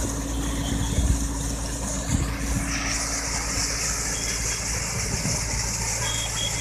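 Tractor diesel engine running steadily, driving a PTO-mounted centrifugal water pump, with a heavy stream of water gushing from the discharge pipe and splashing onto the ground as a steady hiss.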